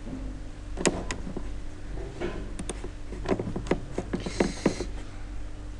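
Computer mouse clicking about ten times at irregular intervals over a steady low hum, with a brief hiss about four seconds in.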